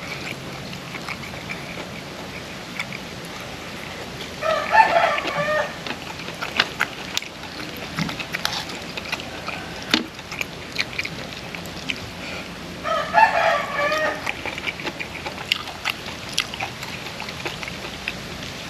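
A rooster crowing twice, each crow a bit over a second long, about eight seconds apart, with scattered small clicks in between.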